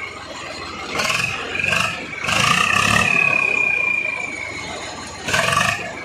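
Swaraj 855 tractor's diesel engine revving with an aftermarket turbo whistle shrieking. There are short blasts about a second in and again just before two seconds, then a long high whistle that slowly falls in pitch and fades, and another short blast near the end.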